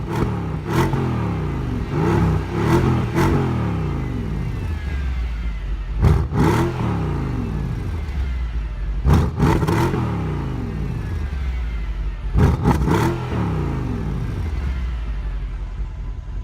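High-performance car engine revved hard in short throttle blips, the revs dropping back after each one. The blips come in clusters of two to four, with quieter idle-like stretches between.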